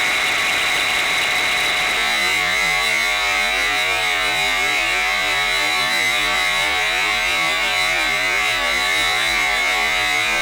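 Metal lathe turning a 4140 steel bar with a carbide insert, giving a steady high-pitched ring with a wavering rumble under it from about two seconds in: tool chatter, which the machinist puts down to too little rigidity and probably the insert.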